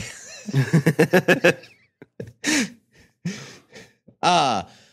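A man laughing: a quick run of rhythmic 'ha-ha' pulses, then a few shorter breathy laughs and vocal sounds.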